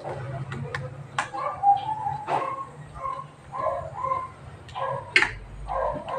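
Metal spoon clinking and scraping against a ceramic bowl while eating, with sharp clicks every second or so. Short pitched calls come and go throughout, over a low steady hum.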